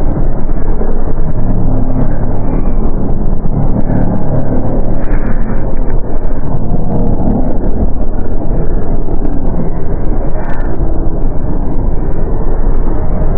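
Dark ambient horror soundscape: a loud, steady, dense low rumble with faint scattered crackles above it.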